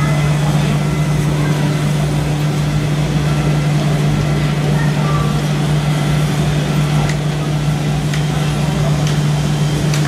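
Steady low engine drone from the RC model construction machines' sound units, with faint short beeps repeating at even spacing.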